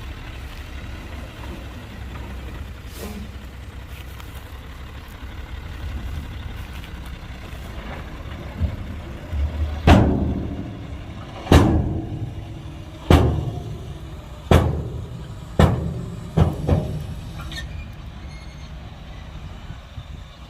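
Heavy diesel earthmoving machinery running steadily. From about ten seconds in, a series of about seven loud bangs comes roughly every second and a half, each dying away quickly.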